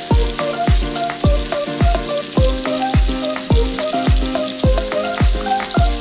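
Background music with a steady kick-drum beat, about two beats a second, over the steady sizzle of fish cake and tomato stir-frying in a wok.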